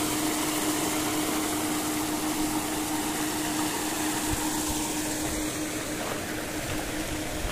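Paddlewheel aerators running on a shrimp pond: a steady hiss of churning water under a steady mechanical hum that fades near the end.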